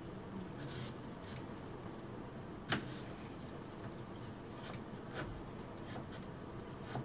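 Quiet food-preparation handling on a kitchen bench: soft scrapes and light taps, with one sharper click nearly three seconds in.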